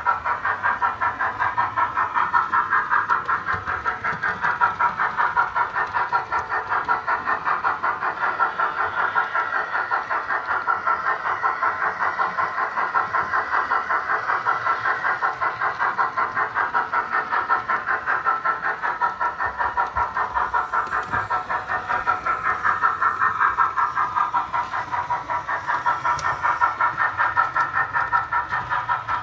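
Youchoos DCC sound decoder in a Hornby model of the Coronation-class steam locomotive 46256 Sir William Stanier, playing steam exhaust chuffs through the model's small speaker as it runs: a steady, rapid, even beat.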